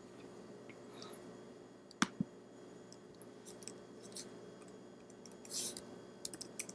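Computer keyboard keys clicking irregularly as a short terminal command is typed, with two sharper clicks about two seconds in and a quick run of keystrokes near the end.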